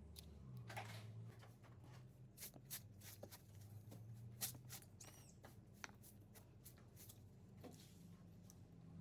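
Faint handling noises: scattered light clicks and taps, with a couple of short squeaks about halfway through, over a low steady hum.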